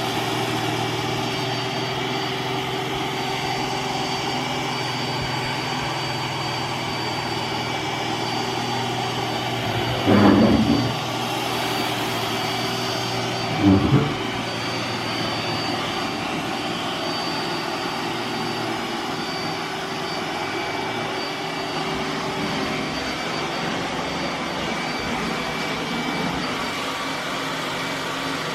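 iRobot Roomba s9+ robot vacuum running on max power, a steady motor hum with a thin high whine, as it picks up a pile of rice from carpet. Two brief louder bursts come about ten and fourteen seconds in.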